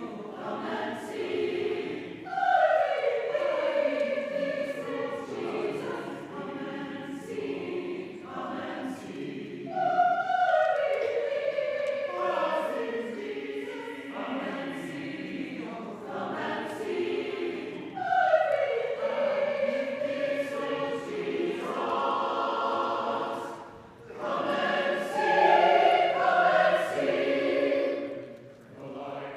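A choir singing a slow communion song, its phrases starting high and falling, repeating about every eight seconds.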